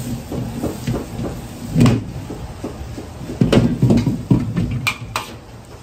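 Large iron wok being shaken on a running gas burner, the steady rush of the burner under heavy metal knocks and scrapes of the wok on its burner ring, about two seconds in and again through the middle. Two sharp metallic clicks near the end, a ladle against the wok.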